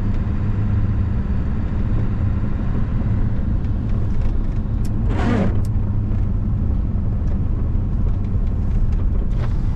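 1997 Ford F-350's 7.3-litre Power Stroke turbo diesel running while the truck is driven, heard from inside the cab as a steady low drone. About halfway through, a brief whine falls sharply in pitch.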